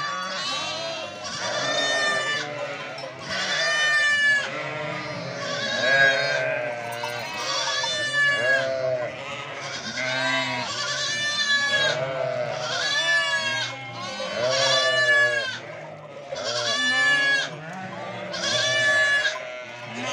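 A flock of sheep bleating: many quavering calls overlap, a loud one every second or two.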